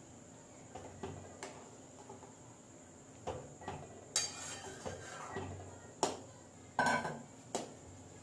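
A metal spoon stirring mango pieces in syrup in a metal pan, clinking and scraping against the pan in scattered knocks. The knocks come more often and louder in the second half.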